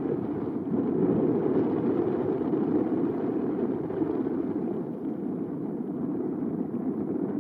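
Wind buffeting the camera's microphone: a steady rushing rumble that swells and eases a little.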